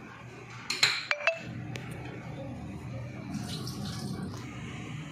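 A few sharp clinks about a second in, each ringing briefly, as kitchenware knocks against a stainless steel cooking pot, followed by a steady low background noise.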